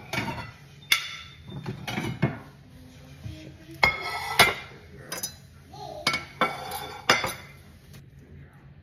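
White ceramic dinner plates being set down on a countertop and knocking against each other: a string of sharp clinks and knocks, the loudest around four seconds in.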